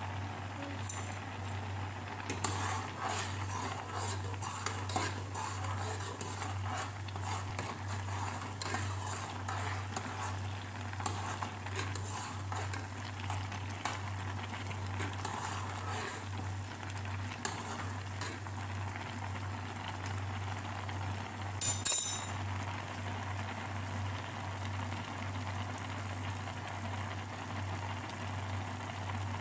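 Penne boiling at a rolling boil in a pan of water: a steady bubbling hiss with a low hum underneath. A brief sharp clatter about two-thirds of the way through is the loudest sound.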